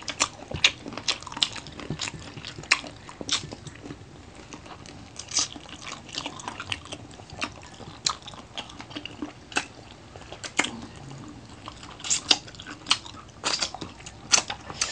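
Two people eating fried adobo chicken feet close to the microphone, with irregular sharp crunches, clicks and smacks from biting and chewing.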